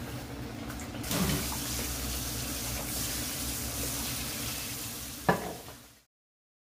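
Hot oil in a tempura pot sizzling steadily as panko-breaded pieces deep-fry, starting abruptly about a second in. There is a single knock about five seconds in, and the sizzle then fades out.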